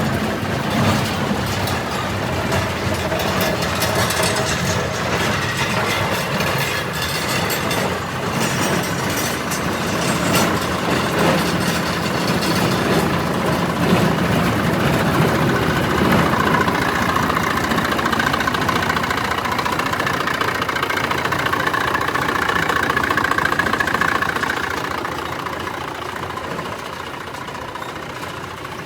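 Deutz diesel engine on a New Holland 515 baler running steadily. A whine comes in over the second half, and the sound fades away in the last few seconds.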